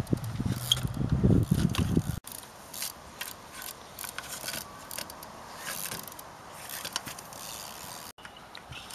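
A trials bicycle hopping and balancing along wooden log rails: sharp clicks, knocks and scrapes of the tyres and bike on the wood. The clicks are heaviest over a low rumble in the first two seconds, then come scattered and quieter.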